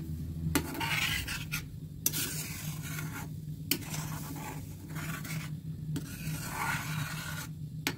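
Metal slotted spoon stirring and scraping boiling milk around an iron kadhai, with repeated rasping strokes and a few sharp clinks of the spoon against the pan, over a steady low hum.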